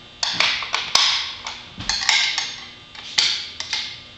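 Sharp knocks and clanks from an incline conveyor's frame as its bolts, sides and struts are worked loose for folding flat: about a dozen quick strikes, some in tight clusters.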